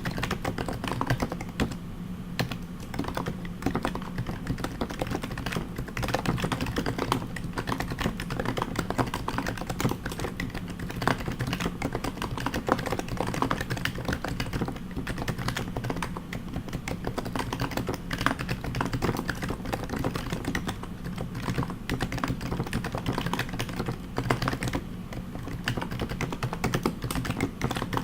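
Fast continuous typing on a Topre HHKB JP keyboard fitted with heavy BKE rubber domes, silenced purple sliders and Hi-Pro keycaps: a dense, uneven run of keystrokes with brief pauses between words.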